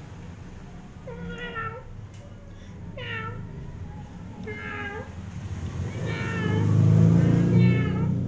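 Domestic cat meowing in a talkative way: five short calls about a second and a half apart. A low rumble swells under the last few calls and is the loudest sound there.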